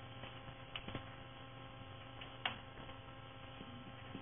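Steady electrical mains hum, with a few sharp taps: two close together just under a second in and a louder one about two and a half seconds in.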